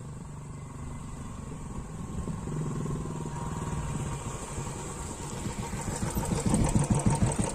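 Royal Enfield Bullet 350's single-cylinder engine running through an aftermarket Indori silencer, giving a steady thump of exhaust beats that grows louder toward the end.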